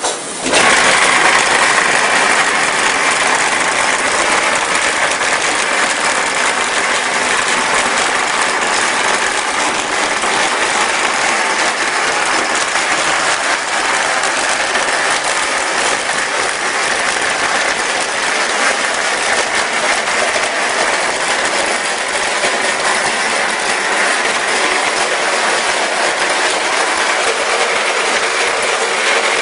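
Automatic wall-plastering machine running as its carriage climbs the mast and its trowel plate spreads mortar onto a brick wall. The steady, loud mechanical noise starts about half a second in.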